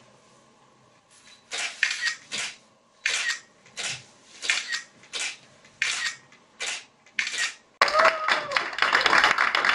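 A run of about ten short breathy bursts, spaced a little over half a second apart. Then, about eight seconds in, a small audience suddenly breaks into clapping and applause, the loudest sound here.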